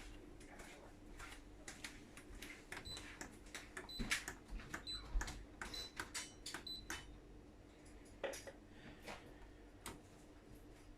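AEG Lavamat washing machine control panel: a string of clicks from the programme selector and buttons, with about half a dozen short high beeps between roughly three and seven seconds in, as the service test mode is keyed in. A faint steady hum runs underneath.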